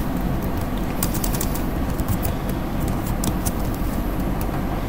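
Computer keyboard typing: clusters of quick key clicks, mostly about a second in and again near the end, over a steady background hiss and low hum.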